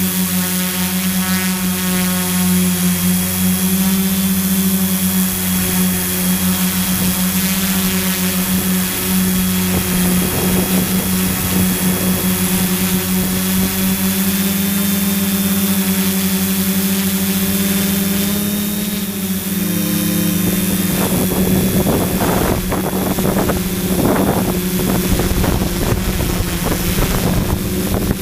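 Multirotor drone's propellers humming steadily, with a pitched whine that shifts slightly now and then. From about two-thirds of the way in, wind buffets the microphone in gusts over the hum.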